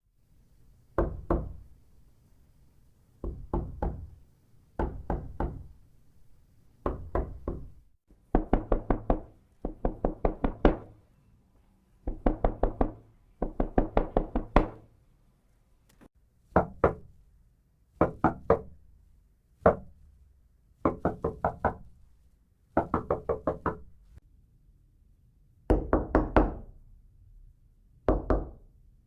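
Knocking on a wooden door in a series of short groups of two to six knocks, some light and spaced, others faster and louder like urgent banging, with brief pauses between groups.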